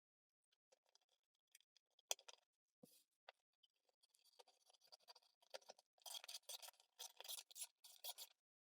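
Faint scraping of a blade on a hard plastic pickup riser as it is trimmed down: scattered light scrapes and ticks, then about six seconds in a run of quicker, louder rasping strokes, about four a second, that stop near the end.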